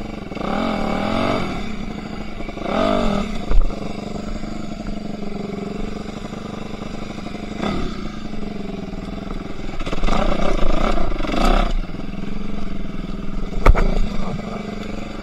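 Enduro motorcycle engine under way off-road, its revs rising and falling in repeated bursts over a steady engine note. There are two sharp knocks, one about three and a half seconds in and one near the end.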